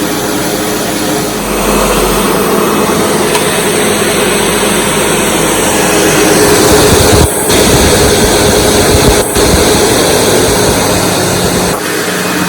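SEBO Automatic X4 bagged upright vacuum cleaner running loudly while vacuuming carpet, a steady motor hum with two brief dips about seven and nine seconds in.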